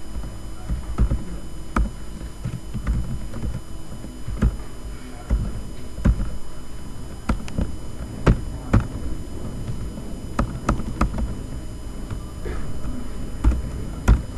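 Computer keyboard being typed on: irregular clicks and taps, some louder knocks among them, over a low steady hum.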